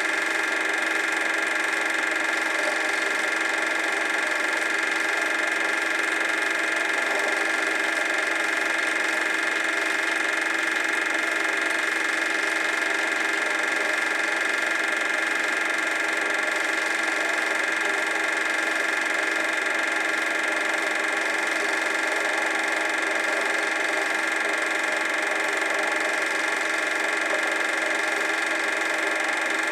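Super 8 film projector running: a steady mechanical whir with a high, even hum that does not change through the scene cuts.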